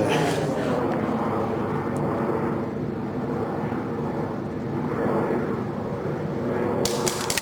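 Steady engine drone with an even stack of tones, slightly wavering, like a light propeller aircraft flying over. A quick run of sharp clicks starts near the end.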